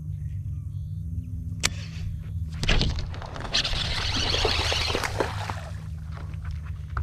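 A sharp click and then a loud thump as the fish is hooked, followed by the splashing of a hooked largemouth bass thrashing at the surface beside the boat for about a second and a half, over a steady low hum.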